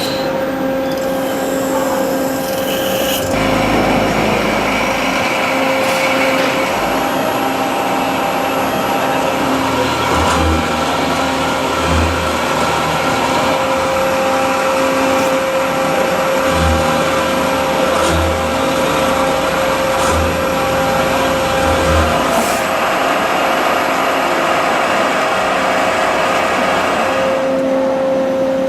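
Goodway GLS-1500 CNC turning center running and machining: a steady mechanical noise with a constant high hum, and several short low pulses in the middle stretch.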